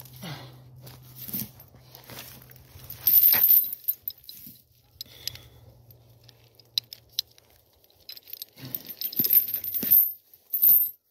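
Metal clinking and jangling in loud bursts, about three seconds in and again near the end, over a low steady hum that fades out about eight seconds in.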